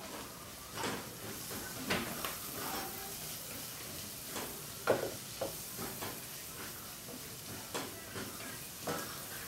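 Wooden spoon stirring diced sausage and vegetables frying in a stainless steel pot: a steady sizzle with irregular scrapes and knocks of the spoon against the pot.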